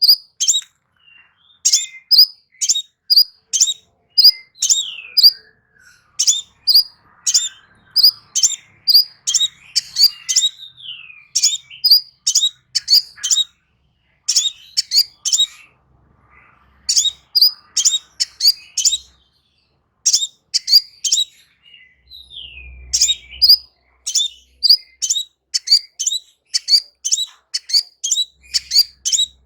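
A songbird singing a rapid run of sharp, high chirps, about three a second, broken by a few short pauses and some downward-sliding notes.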